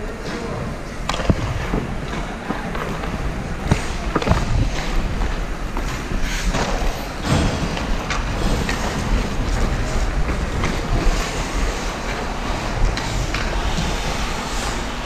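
Ice hockey skates scraping and gliding on the ice, with several sharp clacks of sticks and puck through it.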